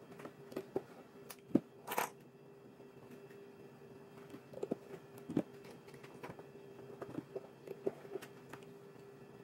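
Hand-stitching a leather rifle scabbard: needles and thread worked through the leather, heard as scattered light clicks and taps with a short rasp about two seconds in. A faint steady hum runs underneath.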